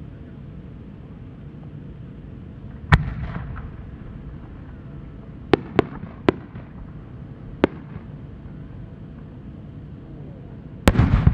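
Japanese aerial firework shell, a rising-tail triple-pistil changing chrysanthemum: a deep bang about three seconds in, four sharp cracks in the middle, then a loud burst boom near the end that is the loudest sound.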